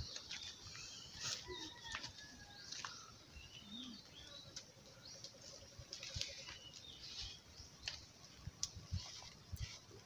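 Scattered rustling and light knocks of dry leaf litter and bamboo tubes being handled, with a few short bird chirps.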